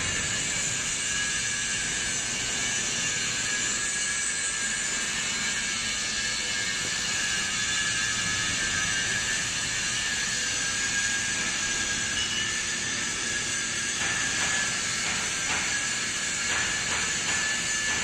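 Hydraulic power unit of a scrap metal baler running: a steady high pump whine over constant hiss. A run of light clicks comes in near the end.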